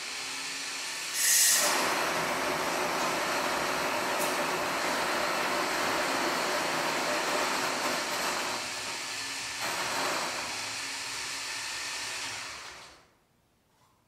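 Electric coffee grinder grinding beans: it starts suddenly, gives a sharp loud burst about a second in, runs steadily, then winds down near the end.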